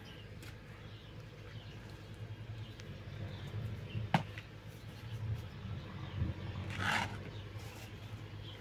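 Quiet outdoor background with a steady low hum, one sharp click about four seconds in and a short rustling scrape near seven seconds, likely from the handling of household things by hand.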